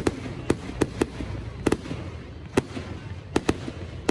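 Fireworks display going off: a string of sharp bangs at uneven intervals, about nine in four seconds, some coming in quick pairs.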